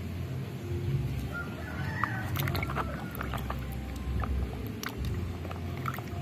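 A hand swishing and scrubbing a toy in a bucket of muddy water, with scattered small splashes. Chickens cluck briefly in the background about two seconds in.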